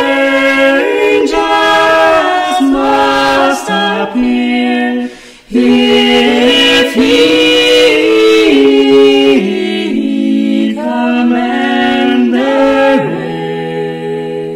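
A cappella vocal ensemble singing a hymn setting in close harmony on long held notes, with a brief break about five and a half seconds in. Near the end the voices settle on a final chord that is held and grows quieter.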